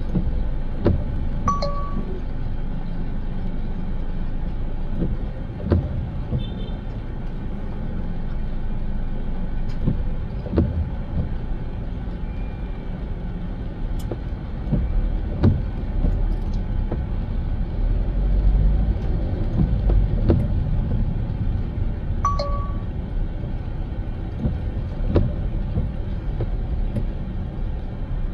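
A car driving along: a steady low rumble of road and engine noise, with scattered sharp clicks and knocks and a few brief high tones.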